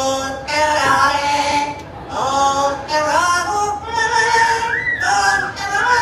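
A parrot mimicking singing: a run of sung notes in several short phrases, the pitch swooping up and down.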